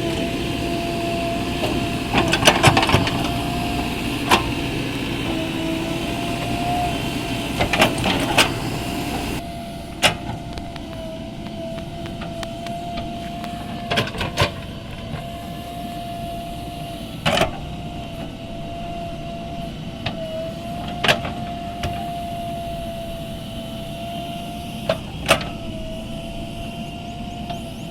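JCB 3DX Plus backhoe loader working: its diesel engine runs with a steady, slightly wavering whine, broken every few seconds by sharp knocks. The machine noise drops noticeably about a third of the way in.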